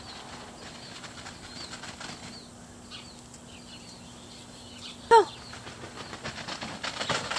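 Faint outdoor rustling with light ticks, then about five seconds in a single short, sharp yip from a small dog, dropping in pitch.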